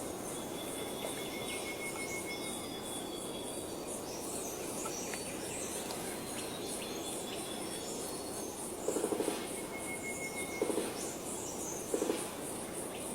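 Forest ambience: a steady, fast-pulsing high insect chorus with thin whistled bird notes. In the second half come three short, loud bursts of rapid low pulsed calls from an animal.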